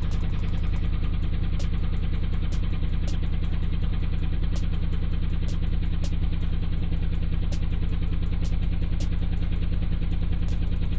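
B-52 SP-1804 18-inch subwoofer driven free air at large cone excursion, giving off a loud, steady low bass drone. Faint regular clicks come through about three times a second.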